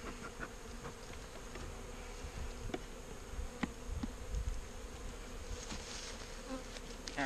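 Honeybees buzzing steadily around an open hive, stirred up and defensive ('a little feisty'). A few faint clicks and soft knocks sound over the hum.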